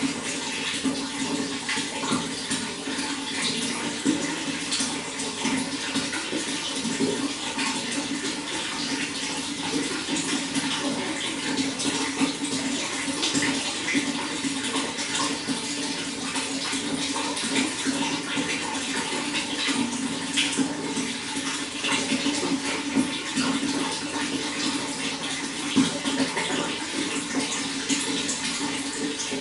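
Running water flowing steadily, an even rushing sound with many small splashes throughout.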